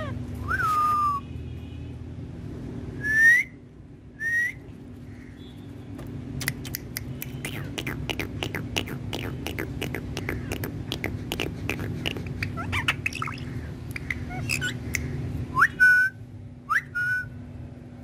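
Indian ringneck parakeet giving short whistled calls, some rising and one falling, with a long run of rapid clicks in the middle. A steady low hum sits underneath.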